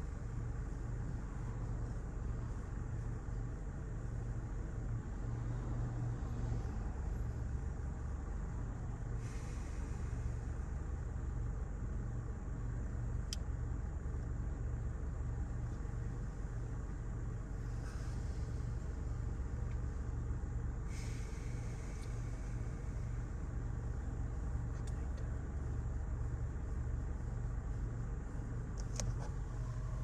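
Steady low rumble of a car running, even in level throughout.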